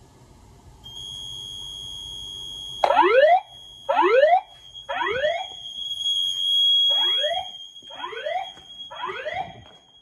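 Notifier voice-evacuation speakers going into alarm with the whoop alert tone: rising sweeps about once a second, starting about three seconds in, over a steady high-pitched tone that begins about a second in.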